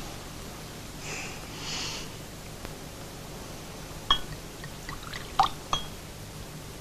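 Wine glasses clinking: a sharp ringing clink about four seconds in, then a few more clinks and taps of glass over the next two seconds. Two soft breathy sounds come about a second in, before the clinks.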